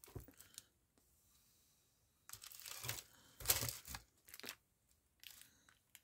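Hands rummaging through a pile of rhinestone and beaded craft trims, making rustling, crinkling handling noises in a few short bursts, the loudest in the middle.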